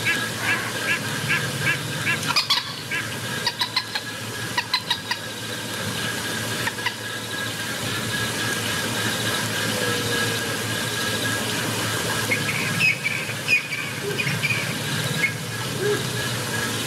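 Animal calls: short high-pitched calls repeated about twice a second at first, then a few sharper squeaks, and another cluster of calls near the end, over a steady thin high whine.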